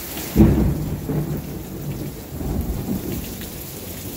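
Thunder breaks loudly about half a second in and rolls on as an uneven low rumble, over heavy rain pouring down.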